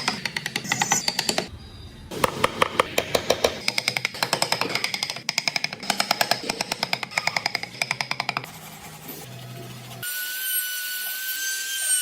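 Wood being rubbed with fast, even back-and-forth strokes, like hand sanding or rasping, with a short pause. About ten seconds in, a small high-speed rotary tool starts with a steady high whine that rises slightly.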